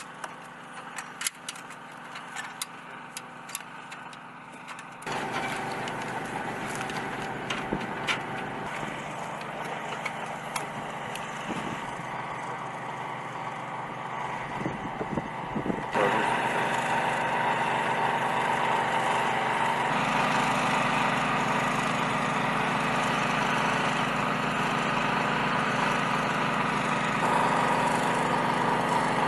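Sharp clicks and knocks of metal equipment being handled. About five seconds in, a steady small engine or motor hum starts, and it runs louder from about sixteen seconds in.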